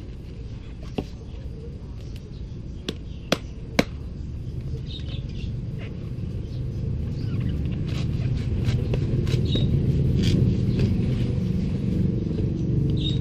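A knife blade striking a husked coconut's shell: four sharp knocks in the first four seconds, the last three close together. Over the second half a low engine rumble builds up and stays loud.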